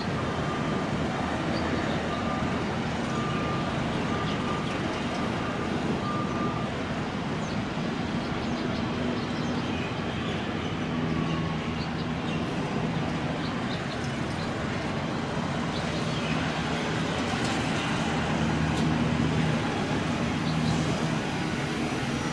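Jet engines of a four-engine UPS Boeing 747 freighter landing: a steady rumble with a low hum that grows stronger in the second half and swells again after touchdown. A repeating beep runs beneath it and stops about six seconds in.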